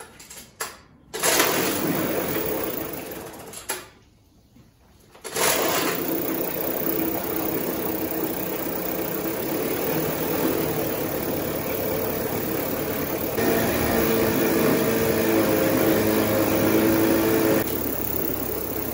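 1949 Johnson Sea-Horse HD25 outboard, a 2.5 hp two-cylinder two-stroke, runs for about two seconds and dies, then fires again about five seconds in and keeps running with its lower unit in a bucket of water. About halfway through it speeds up, and it drops back a little near the end. It is an engine that has been running a while and then quitting, on a carburetor needle setting that is super sensitive.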